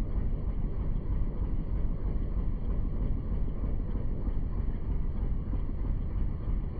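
Wind buffeting the microphone on a moving boat: a steady, choppy low rumble with no distinct engine note.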